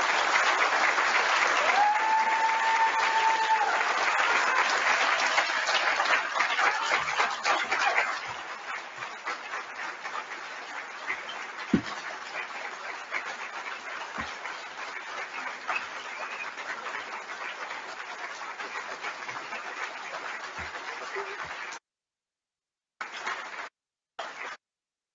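Audience applauding: loud for about eight seconds, then quieter and steady until it cuts off suddenly near the end. One held high-pitched call from someone in the crowd rises above the clapping about two seconds in.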